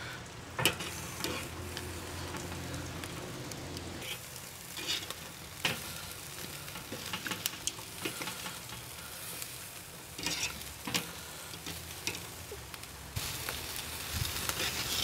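Airline chicken sizzling as it sears directly over hot mesquite charcoal on a Weber kettle grill grate, a steady hiss. Scattered sharp clicks come from the metal tongs moving the pieces on the steel grate.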